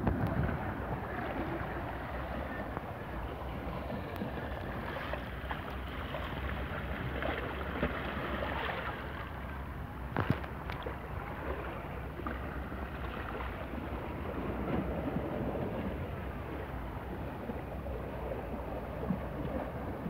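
Small sea waves lapping and splashing against shore rocks, with wind rumbling on the microphone. A few sharp clicks, the clearest about ten seconds in.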